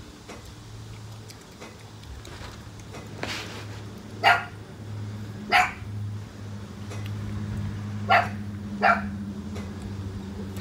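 Dog barking: four short single barks, the first about four seconds in and the last two close together, over a steady low hum.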